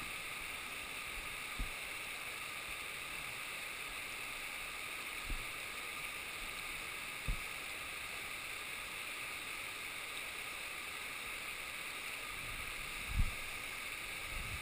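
Steady rush of flowing river water at a shallow rapid, heard from right at the water surface. A few short low thumps break in, the loudest near the end.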